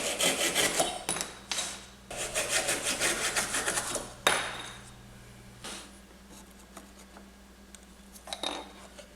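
Fast back-and-forth rasping strokes of a hand tool cutting a small piece of wood, in two runs of about one and two seconds, followed by a single sharp knock and quieter handling.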